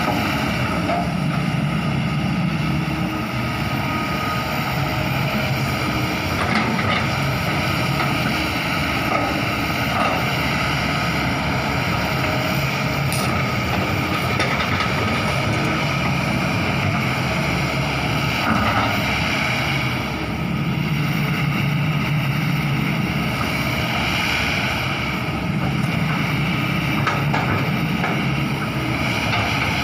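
Hydraulic excavator's diesel engine running steadily under working load, its low note swelling now and then as the machine works.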